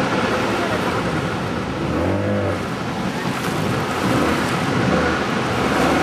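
Waterfall roaring: a steady, loud rush of heavy falling water and churning spray.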